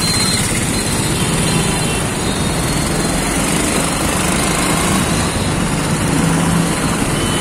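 Small engine of a moving auto rickshaw running steadily, with road and traffic noise, heard from on board.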